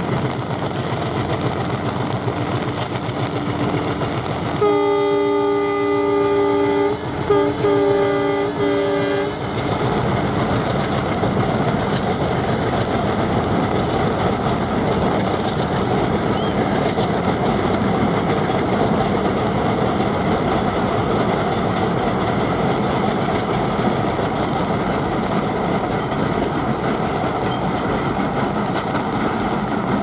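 WDM3D ALCO diesel locomotive's engine running, then its horn sounding for about five seconds with a brief break partway. After the horn, a steady rumble and clatter of the passenger coaches rolling across the steel girder viaduct.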